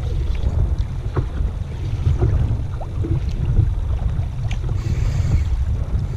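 Wind buffeting the camera microphone, a steady low rumble, with a few faint clicks here and there.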